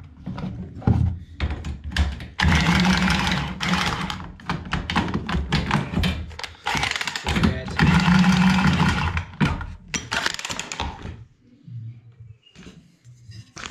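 Knocks and clatter of hand work on copper heating pipework, with two longer stretches of continuous noise, about two and a half and eight seconds in.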